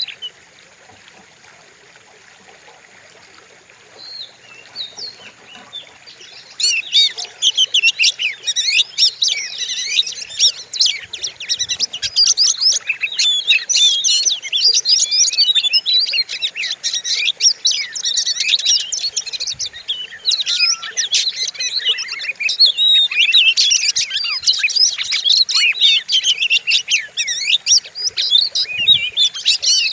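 Oriental magpie-robin (kacer) singing: after a few seconds with only a few faint chirps, a loud, fast, unbroken run of varied whistles and harsh sweeping notes begins about six seconds in and carries on.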